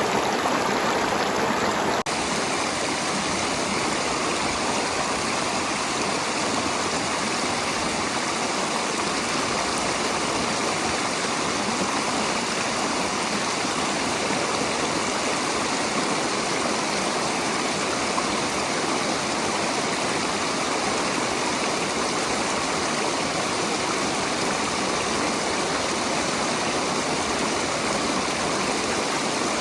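Steady rushing and babbling of flowing stream water, even throughout, with a slight change in tone about two seconds in.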